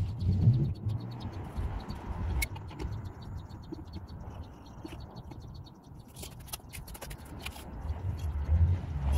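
The Ford Escape's stock scissor jack being cranked by hand, with scattered light metallic clicks, over a low rumble of wind on the microphone.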